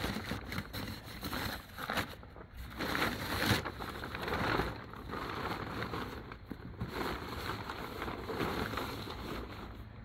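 A fabric snowmobile cover rustling and crinkling unevenly as it is tugged and bunched off the sled.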